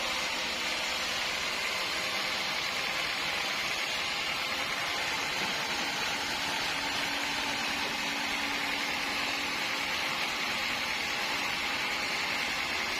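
Sawmill machinery running steadily, a constant even noise with no breaks.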